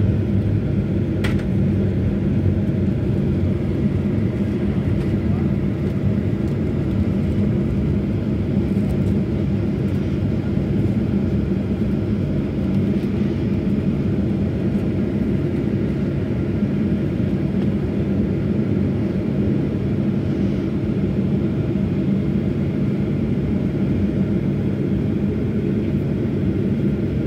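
Steady cabin noise of a jet airliner taxiing after landing: engines at low thrust and rolling noise, a constant low rumble. A single sharp click about a second in.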